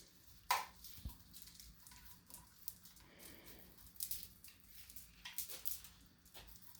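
Faint handling noises: scattered clicks and rustles as the bass knob's long lead and packaging are handled, with a sharper click about half a second in.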